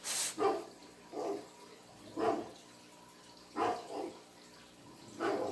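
A dog barking: about seven short, separate barks at irregular gaps of roughly a second.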